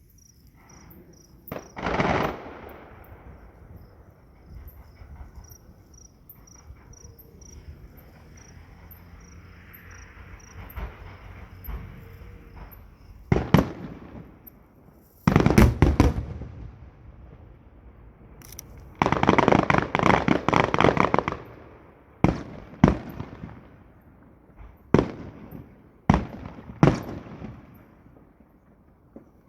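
Fireworks exploding: a bang about two seconds in, then after a lull a run of bangs, a dense crackling barrage lasting about two seconds, and several single reports spaced a second or two apart near the end. Crickets chirp faintly and steadily underneath.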